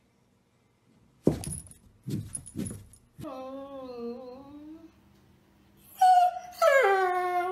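Weimaraner whining in pitched, wavering calls: first a softer whine about three seconds in, then a louder, higher whine-howl that drops in pitch at its end. A few short noisy bursts come just before.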